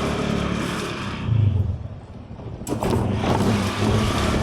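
Motor vehicle on the move: a steady low engine hum with road noise. The noise drops away for about a second in the middle, and a sharp click comes as it returns.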